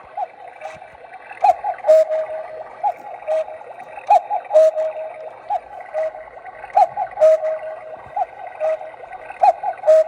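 Battery-powered quartz cuckoo clock striking the hour, its electronic cuckoo call repeating about every two and a half seconds, each call with clicks from the moving bird mechanism.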